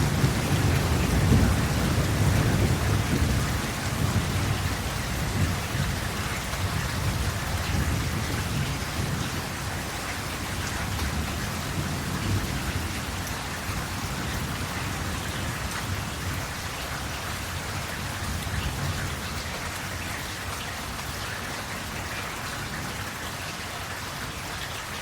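Steady rain with a low rumble of thunder, loudest over the first few seconds and fading away by about the middle.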